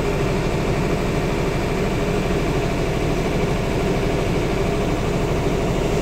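Large diesel generator set, a 100 kW genset, running steadily with an even engine drone.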